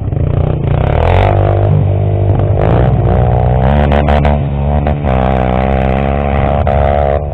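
Single-cylinder motorcycle engine running under load off-road, its pitch rising and falling as the throttle is worked, with a few sharp clattering knocks about four seconds in.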